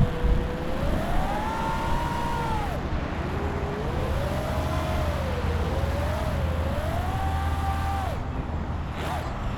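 Five-inch FPV quadcopter's brushless motors whining, the pitch rising and falling in several swoops as the throttle changes and dropping away sharply near the end. A steady low rumble runs underneath.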